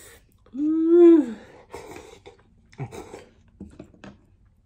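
A man's closed-mouth groan, rising then falling in pitch for about a second, followed by a few short breathy puffs. It is his reaction to extra-spicy, hot miso ramen burning his tongue.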